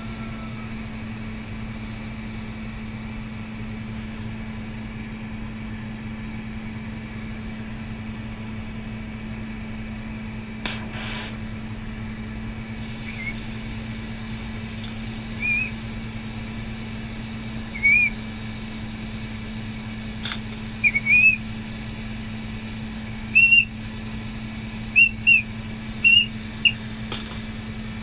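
Steady hum and hiss of a lit glassblowing bench torch setup, with about a dozen short, high, squeaky chirps from about halfway on and a few sharp clicks.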